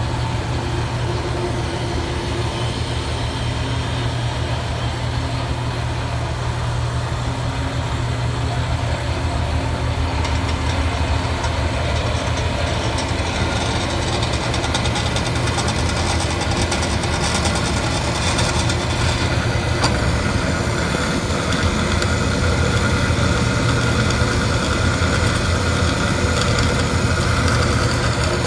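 Grob 36-inch vertical bandsaw running on three-phase power and cutting: a steady low motor hum under the noise of the blade. A higher-pitched tone grows louder through the second half.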